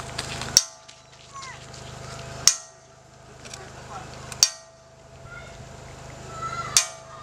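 A church bell struck slowly, four strokes about two seconds apart, each one ringing on after the hit.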